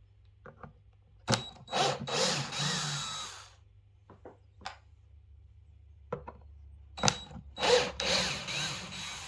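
Cordless drill driving screws out of a speaker's woofer mounting in two runs of about two seconds each, with a steady motor whine. There are a few small clicks between the runs.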